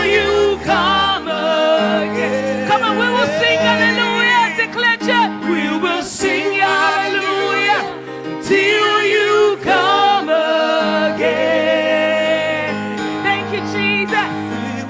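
Live gospel worship music: sung vocals with backing voices over sustained keyboard and bass chords.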